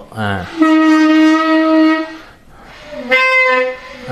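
Clarinet blown by a beginner student, holding one steady note for about a second and a half. It breaks off, and a shorter, higher note follows near the end.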